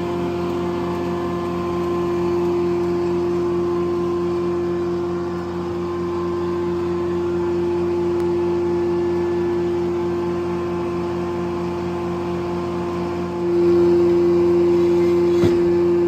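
Corley circle sawmill running, a steady mechanical drone from its power unit and spinning blade. It gets clearly louder about three-quarters of the way in, with a single sharp click near the end.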